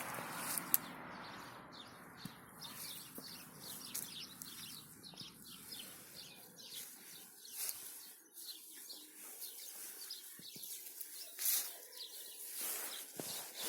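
Small birds chirping outdoors, many short high chirps and calls at an uneven rate, over a soft rushing noise that dies away in the first few seconds.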